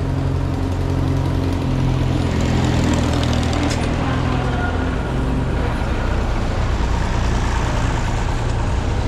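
Vintage tractor engines running as tractors drive past one after another. The steady low engine note changes about halfway through, as a second tractor comes close.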